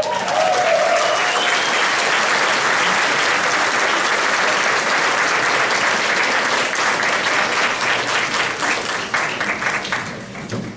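Audience applauding at the end of a big-band number. The steady clapping thins into scattered separate claps and fades near the end.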